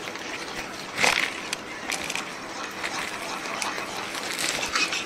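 Kitchen handling noise while whole spices are added to a yogurt mixture: rustling and scraping with scattered clicks, and a louder crunching rustle about a second in.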